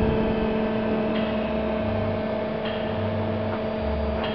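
Steady electrical hum from a running VHF television transmitter and its bench setup: a few held tones over a low drone that switches between two pitches about once a second.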